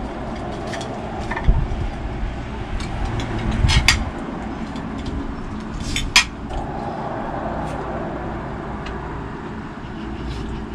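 Steady low outdoor rumble with a few sharp clicks and clinks of plates and cutlery as people eat at a table, the clearest about four and six seconds in.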